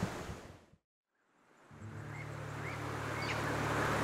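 Sound fades out to silence, then fades back in about two seconds in as a steady low hum with a few short bird chirps over it.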